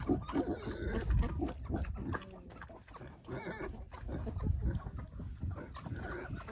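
Pigs grunting as they root and eat pig pellets spread on the ground, with many short irregular clicks.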